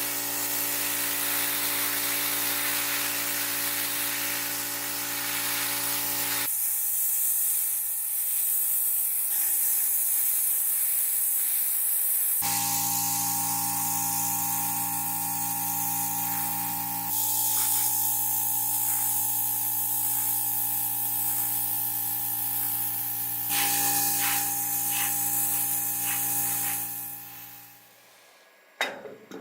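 A motor-driven cleaning sprayer runs with a steady hum and a strong spraying hiss, its pitch and tone shifting abruptly several times. It fades out near the end, followed by a couple of sharp clicks.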